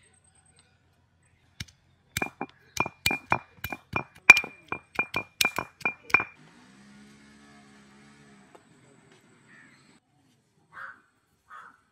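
Metal being struck against metal: a fast run of about sixteen sharp clinks, roughly four a second, each with a brief ringing tone. It starts about two seconds in and stops after about four seconds, followed by a faint low hum.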